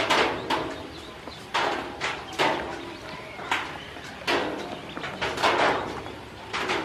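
Ducklings jostling in a plastic tub, making short irregular sounds about one or two a second, each trailing off quickly.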